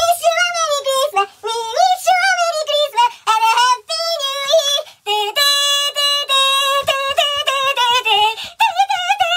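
High-pitched, sped-up vocal singing or chanting in quick short syllables. It breaks into a few held, steady notes about five seconds in, then returns to the quick syllables.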